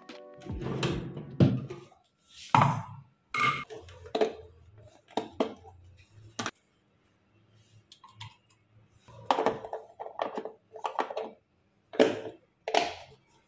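Household handling noises: scattered knocks and clicks, a brief clink, then a plastic container being opened and dry pieces tipped with a rattle into a stainless steel mixer-grinder jar.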